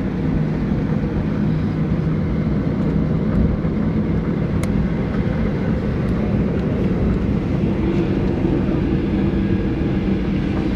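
Steady drone inside a jet airliner's cabin on the ground before the takeoff roll, with a low, even hum under it; the engines are not yet at takeoff power.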